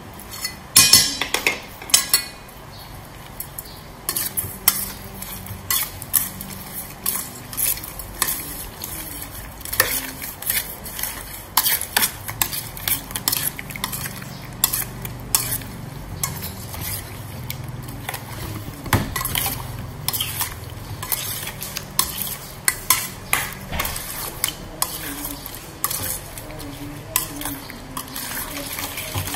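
Metal spoon stirring raw prawns and egg in a stainless steel bowl, clinking and scraping against the bowl over and over, with the loudest clinks about a second or two in.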